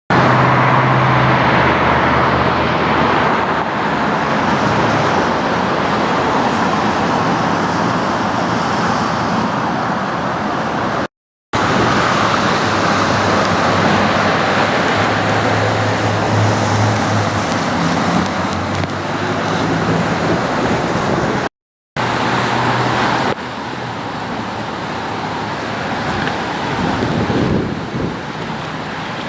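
Steady road traffic noise: vehicles passing with tyre hiss and engine hum. The sound cuts out completely twice for a fraction of a second.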